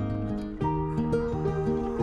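Gentle instrumental background music of held notes, changing pitch about half a second in.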